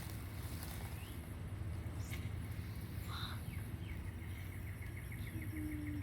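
Outdoor ambience: a steady low rumble, a short bird-like call about three seconds in, and a fast, even ticking trill through the last two seconds.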